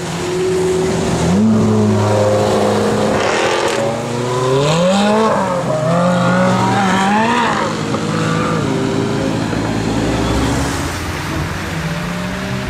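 Ferrari 458 Speciale's naturally aspirated 4.5-litre V8 accelerating hard, its revs climbing in several quick rises from about a second in until midway, then settling to a steadier, lower note.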